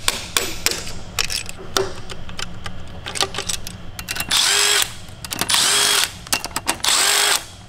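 A few sharp metal taps and clinks around the connecting-rod caps, then three short bursts of a power tool spinning out the rod-cap bolts of an Audi 4.2-litre V8. Each burst lasts about half a second to a second and carries a steady motor tone.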